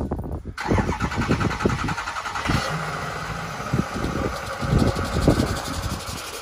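Ford F-550's 6.0-litre Power Stroke V8 diesel cranking and starting about half a second in, then running at idle.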